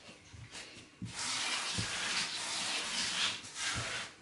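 Hands kneading crumbly shortcrust dough on a floured silicone mat: a rough rustling hiss that starts about a second in, with soft thumps as the dough is pressed down.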